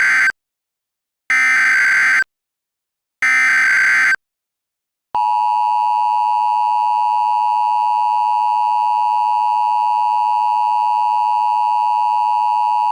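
Emergency Alert System tones: the tail of one and then two more one-second bursts of SAME digital header data, about a second apart. About five seconds in comes the steady two-tone EAS attention signal, held unchanged, which announces that an alert message follows.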